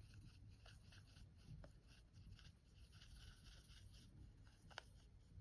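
Faint brushing and rubbing of a paintbrush mixing paint on a palette, with a few light taps, the clearest near the end.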